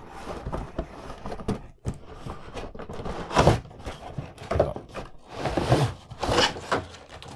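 Cardboard rubbing and scraping as a snug inner cardboard tray is worked out of a toy's cardboard box, in irregular rustles with louder scrapes about three and a half and six and a half seconds in.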